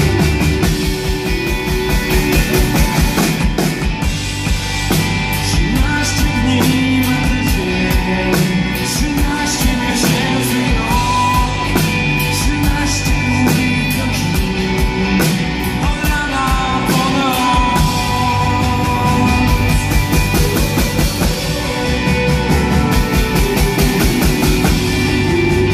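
Live rock band playing loud: electric guitars, bass guitar and drum kit, with steady drum and cymbal strokes throughout.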